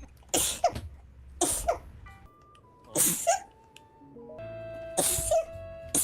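A person sneezing four times in a row, about one and a half seconds apart. Each sneeze is a sharp burst of breath with a short voiced tail.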